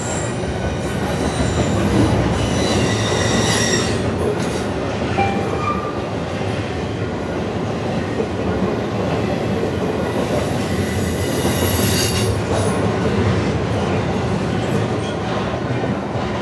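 CN double-stack intermodal freight train rolling past, heard from inside a city bus: a steady rumble of wheels and running noise, with high metallic squeals about a second in and again around ten seconds in.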